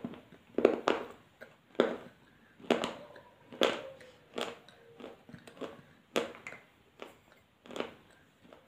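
A person biting and crunching a hard white cube of edible clay close to the microphone. It comes as a string of sharp, brittle crunches at an irregular pace, roughly one or two a second.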